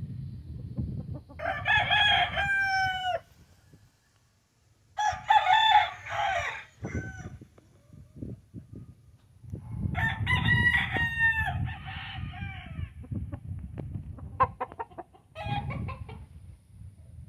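Gamecock crowing: three long crows about one, five and ten seconds in, with a shorter call near the end.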